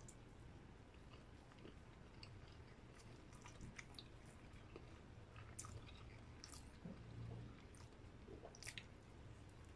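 Faint close-miked chewing of grilled barbecue meat: soft, irregular wet mouth clicks and smacks, a few slightly louder ones now and then.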